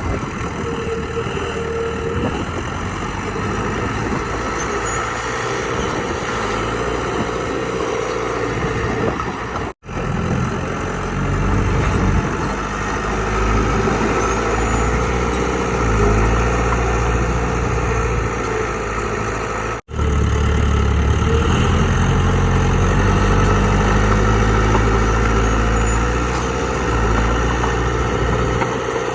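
Heavy diesel engines of earthmoving machinery running steadily at work. The sound drops out suddenly twice, about ten and twenty seconds in, and the low engine sound is heavier after the second break.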